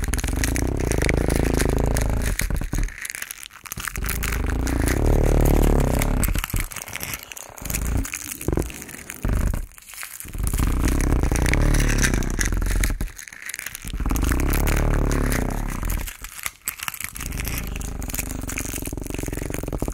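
Musique concrète built from close-miked crunching and crumpling sounds over a deep low rumble. It comes in swells a couple of seconds long, broken by short sudden gaps.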